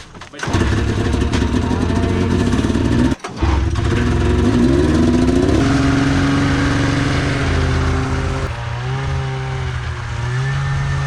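Snowmobile engine running just after starting, dropping out briefly about three seconds in, then revving up in pitch and settling into a steady idle.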